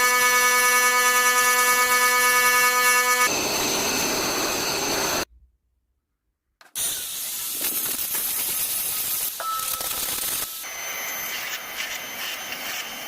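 Power woodworking tools shaping a small wooden ring in quick clips. First a steady high motor whine, then a rough rasping as the tool bites the wood, then after a brief cut to silence a gritty grinding and sanding noise that shifts in tone near the end.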